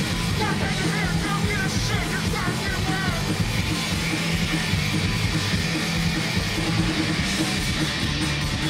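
Punk rock band playing live, with distorted electric guitar, bass guitar and drums driving hard and steady. A run of short high rising-and-falling notes cuts through in the first three seconds.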